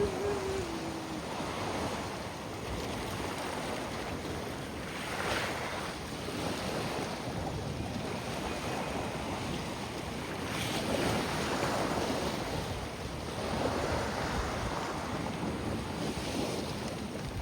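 Sea waves washing onto a beach, surging and easing every few seconds, with wind buffeting the microphone. A short pitched glide fades out in the first second.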